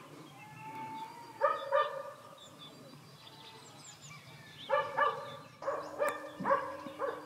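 A herding dog barking in three quick runs of two or three short barks each, with birds chirping faintly behind.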